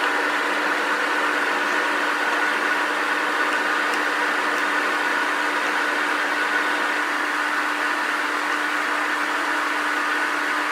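Electric trim router running steadily at full speed, trimming overhanging veneer flush with a cabinet's edge.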